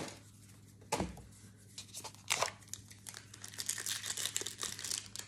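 Foil booster-pack wrappers crinkling and tearing as Pokémon trading-card packs are opened and the cards handled. A sharp rustle comes about a second in and another near two and a half seconds, then a run of smaller rustles.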